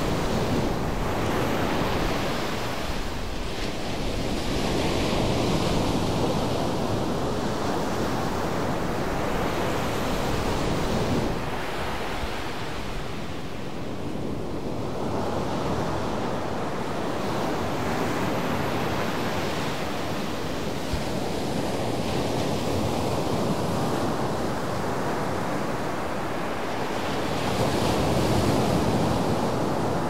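Small surf breaking and washing up a sandy beach: a steady rush of noise that swells and eases with each wave, loudest a few seconds in and again near the end.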